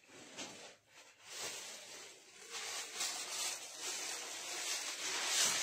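Saree fabric rustling and swishing as it is handled and unfolded, a hissy rustle that grows louder from about a second and a half in and is loudest near the end.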